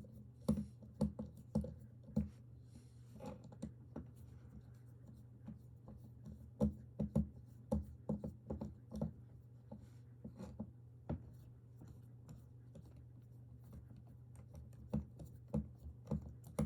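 Small irregular clicks and taps, some in quick clusters, from a Torx screwdriver and the metal and plastic parts of an OTF knife being handled as its body screws are loosened. A steady low hum runs underneath.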